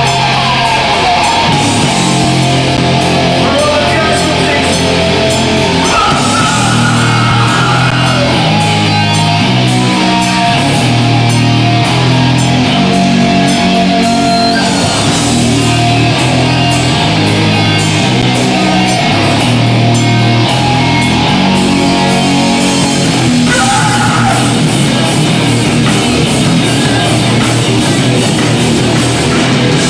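Hardcore punk band playing live: loud distorted electric guitar riffs over bass and drums, with cymbals crashing throughout.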